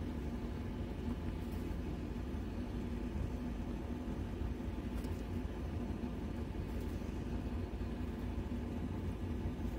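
A vehicle running, heard as a steady low rumble with an even hum.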